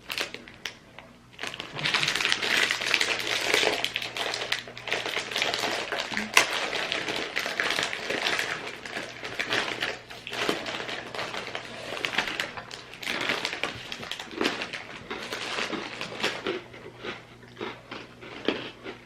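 Dense, irregular crackling and crunching as a packet of olive oil crackers is opened and handled and the crisp crackers are eaten.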